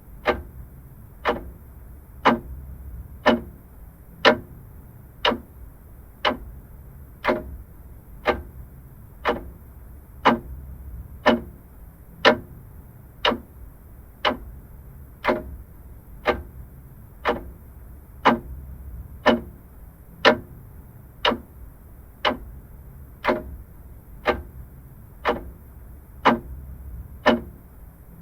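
Vintage mechanical clock ticking steadily, about one sharp tick a second, over a faint low background hum.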